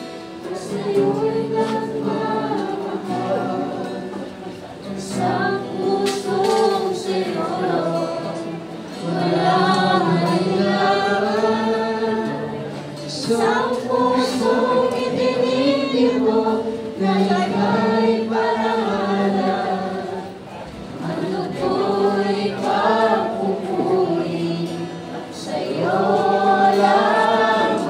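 A small group singing a worship song together in long phrases, with a lead voice on a microphone through a portable speaker and an acoustic guitar strummed along.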